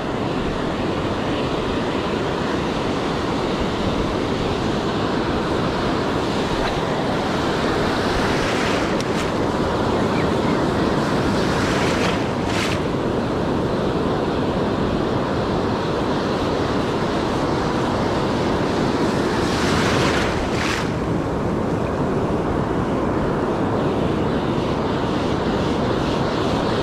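Ocean surf washing around the shallows with wind buffeting the microphone, a steady rushing noise. A few brief louder rushes come through, about a third of the way in and again about three quarters of the way in.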